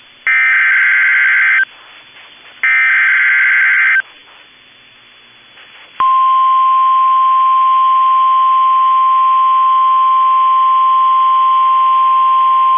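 NOAA Weather Radio EAS alert: two buzzy digital SAME header bursts, each about a second and a half long with a short gap between, then after about two seconds the steady 1050 Hz warning alarm tone starts and holds. It announces the start of a new warning broadcast.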